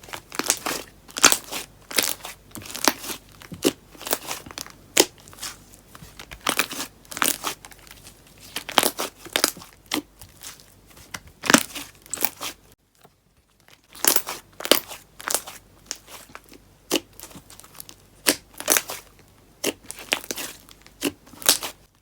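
Fluffy slime being squished and stretched by hand, giving an irregular run of sticky crackles and pops, about two or three a second, that stops for about a second a little past the middle.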